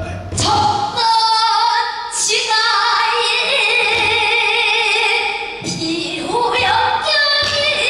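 A woman singing pansori in long held, wavering notes that step up and down in pitch, with short breaks for breath about a second in and near six seconds.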